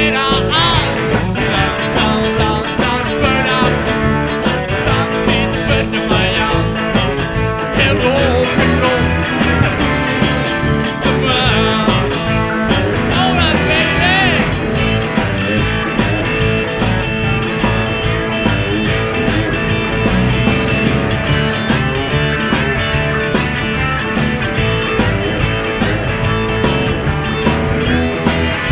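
Rock and roll band playing an instrumental passage: electric guitar lead lines with bent, wavering notes over a steady drum beat and bass.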